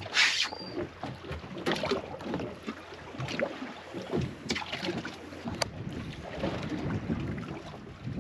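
Wind buffeting the microphone on an open boat, with scattered knocks and rattles from handling gear and a hatch on the deck. A short loud rush of noise comes right at the start, and a single sharp click about five and a half seconds in.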